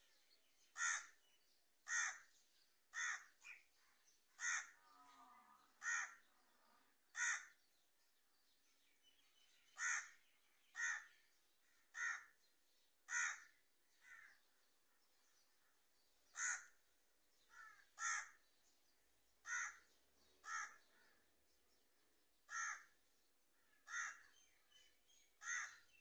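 A crow cawing 'kahn… kahn… kahn': short single caws about a second apart, about twenty in all, in three runs with pauses of two to three seconds between them.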